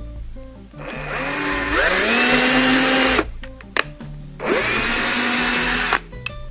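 Cordless drill boring starter holes into soft plywood, in two runs of about two seconds each. Each run opens with the motor whine rising as it spins up, then holds steady, and stops abruptly.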